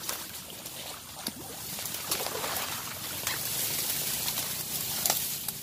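Tall dry grass and reed stalks rustling and crackling as someone pushes through them on foot, a continuous rustle with scattered sharp crackles that grows louder after about a second and a half.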